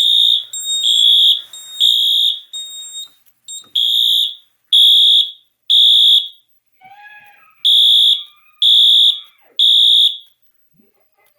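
Fire alarm horn sounding a high, piercing tone in the temporal-3 evacuation pattern: three short blasts about a second apart, then a pause, repeated three times. For the first two seconds a second, steadier alarm tone overlaps the blasts and then drops out.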